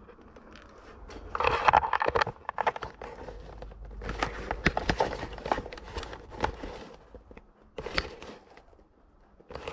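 Boots crunching and scraping over loose rock and scree, with irregular clicks of stones knocking together and shifting underfoot, loudest about a second and a half in and again a few seconds later.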